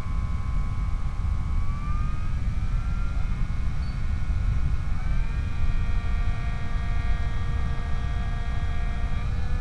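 Electric motor of a Skyhunter FPV plane whining under heavy wind rumble on the onboard microphone. The whine rises in pitch about two seconds in and steps up again about five seconds in as the throttle is opened.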